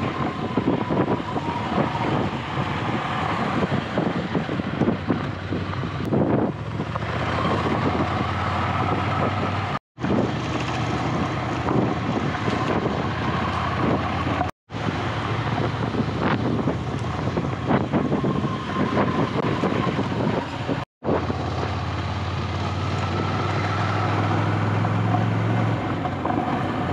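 Ducati Scrambler's air-cooled L-twin engine running under way off-road, with wind buffeting the microphone. The sound drops out briefly three times.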